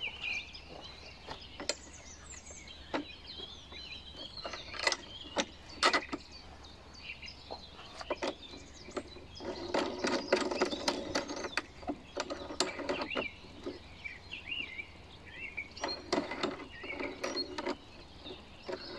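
Irregular clicks, knocks and rustling of plastic parts being handled while a Makita 380 mm cordless lawn mower is assembled, busiest about ten seconds in.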